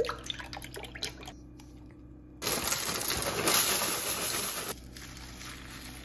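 Almond milk poured into a plastic blender cup, faint, then about two seconds in a loud rushing noise starts suddenly and stops just as suddenly a couple of seconds later.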